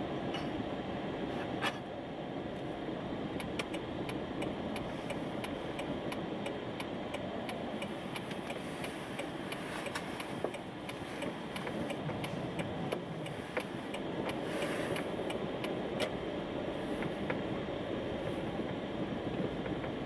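Steady road and engine noise inside a moving car's cabin, with a turn signal clicking about twice a second from a few seconds in until near the end.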